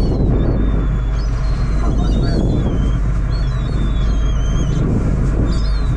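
Fishing boat's engine running steadily with a low rumble, with wind buffeting the microphone.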